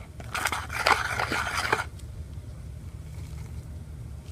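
Scraping and squishing of a shaving-foam and face-mask slime mixture being worked in a bowl, a dense run of small scrapes and clicks that stops about two seconds in. A low steady hum follows.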